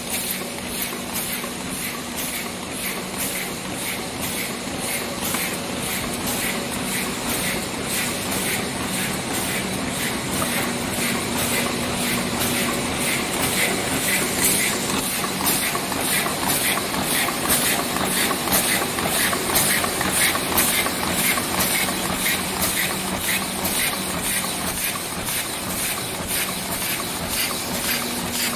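Paper cup forming machines running on a factory floor: a steady mechanical clatter with a fast, regular clicking of about two to three strokes a second, over a steady hum and hiss.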